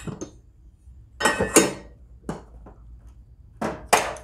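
Metal hand tools clattering and clinking against each other and the steel tool chest as they are set down and picked up, in a few short bursts: one about a second in, a lighter one around two seconds, and two more near the end.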